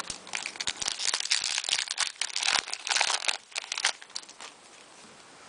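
Wrapper of a trading card pack being torn open and crinkled, a dense crackling that stops about four seconds in.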